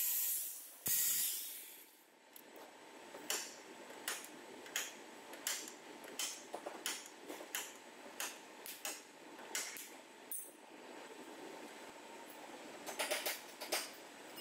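A pneumatic grinder hisses briefly at the start. After that, a stud-welder dent puller fires a string of short, sharp snaps about every half-second, tacking pins onto bare body steel at the wheel arch, with a quick cluster of shots near the end.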